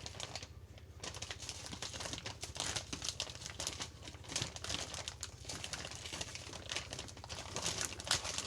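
Plastic bag and wax paper crinkling and rustling without a break as frozen hamburger patties are pulled out and separated by hand.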